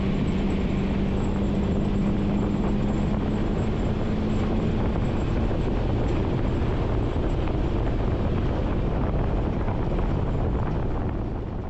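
Steady vehicle engine and road noise with a low hum, fading out at the end.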